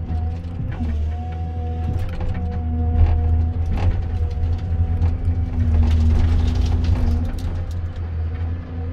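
Komatsu 931.1 forest harvester at work on a large spruce: the diesel engine runs steadily under load with a steady hydraulic whine, while the C93 harvester head gives short knocks and cracks as it grips and feeds the timber.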